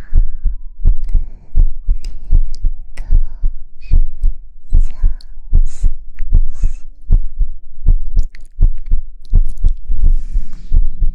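Soft, deep rhythmic thumping, roughly two beats a second like a heartbeat, from close-miked patting or a heartbeat-style soothing sound. Brief airy hisses, like breathy shushing, come in now and then.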